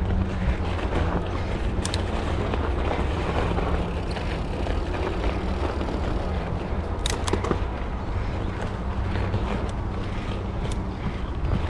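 Mountain bike rolling over rough trail: a steady low rumble of tyres and frame vibration reaching the camera, with a few sharp clicks about two seconds in and again around seven seconds in.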